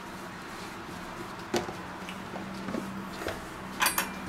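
Quiet handling of kitchenware over a faint steady hum: a few light knocks as a pot lid is lifted off, then a short clatter of cutlery near the end as a spoon is picked up from the cutting board.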